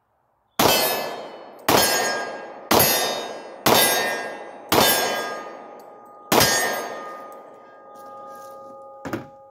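Six .40 S&W pistol shots from a Glock 22, fired about a second apart with a slightly longer pause before the last, each followed by a metallic ringing that hangs on. A light knock near the end.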